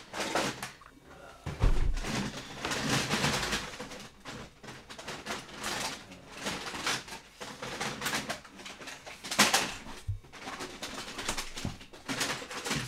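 Plastic Nerf blasters clattering, scraping and knocking against one another as a hand rummages through a heap of them, with a sharp knock about nine and a half seconds in.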